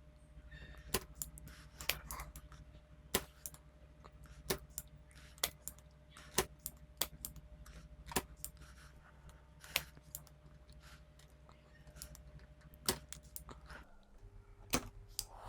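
Small sharp clicks and taps at irregular intervals from a spring-loaded desoldering pump and soldering iron being worked against a circuit board, over a faint steady hum.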